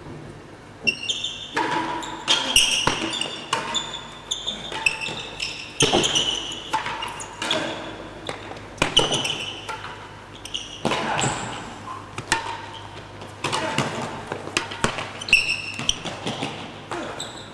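A real tennis rally: the solid ball struck by rackets and rebounding off the court's walls, floor and penthouse roof. The knocks are irregular, about one or two a second, some with a short ring, and echo in the enclosed court.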